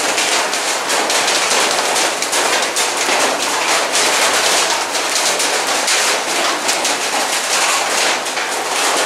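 Heavy, steady rain pouring down: a loud, even hiss dense with the sharp ticks of individual drops striking close by.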